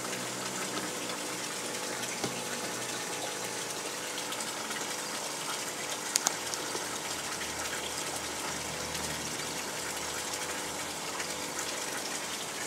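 Steady rush of water pouring into a koi pond, with a sharp double click about six seconds in.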